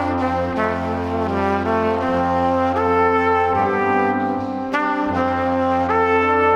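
Background music with brass instruments playing held chords that change every second or so.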